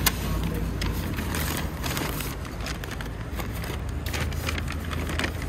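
A vehicle engine running steadily, a low rumble, with scattered light clicks and rustles over it.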